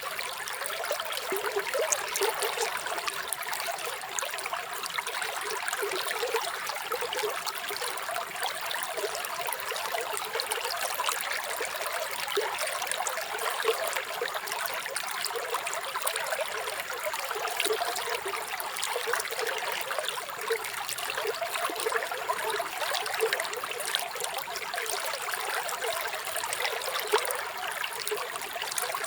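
Small stream of running water trickling and babbling steadily, a busy continuous splashing.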